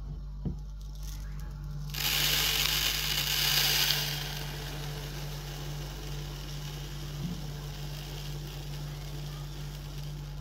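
Dry buckwheat groats poured in a stream from a glass jar onto a wooden tabletop: a loud rushing patter of grains sets in about two seconds in, then settles to a softer steady hiss as they land on the growing heap.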